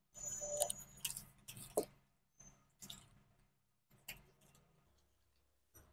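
Faint, sparse ticks and crackles from hot cooking oil in an aluminium kadai over a gas flame, a few in the first two seconds and fewer after.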